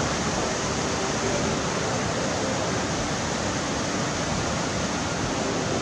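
A fast, shallow stream rushing over boulders and small cascades: a steady, even rush of water that does not change.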